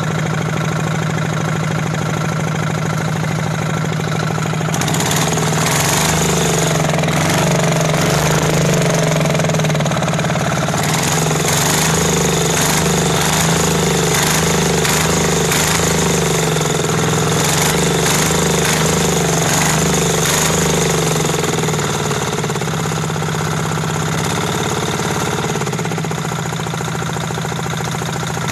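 Riding lawn mower engine fitted with an open cone air filter, running steadily. It gets louder about five seconds in and its note wavers up and down through the middle as it is driven.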